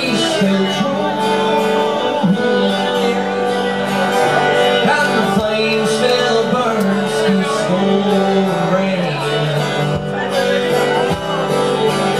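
Live fiddle and strummed acoustic guitar playing a country-folk tune, the fiddle holding long notes that slide between pitches over the steady guitar strumming.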